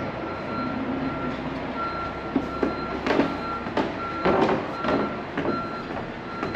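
Backup alarm on a reversing machine, beeping on and off in a steady rhythm, with clanks and rattles of the machine moving over its running noise.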